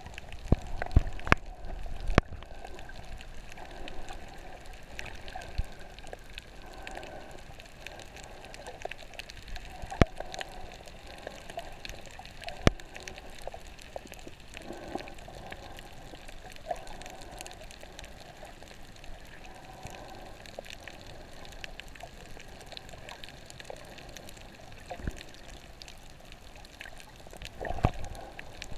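Underwater sound through a GoPro's waterproof housing: a steady, muffled wash of water with a handful of sharp clicks scattered through it. There are a few low thumps near the start and again near the end.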